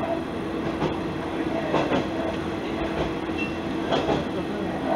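Isumi Railway diesel railcar running along jointed track, its wheels clicking over the rail joints in quick pairs about every two seconds over a steady engine hum.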